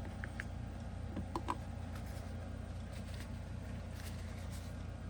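Steady low background hum with a few faint clicks and rustles: items being handled inside an opened cardboard package.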